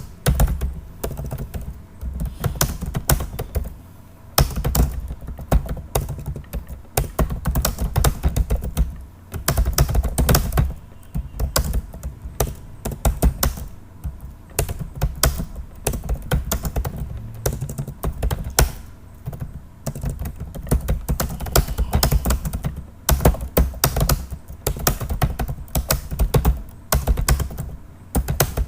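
Fast typing on a computer keyboard: a rapid, continuous clatter of keystrokes with low thuds under them, broken by a few short pauses. This is typing at speed through a timed typing test.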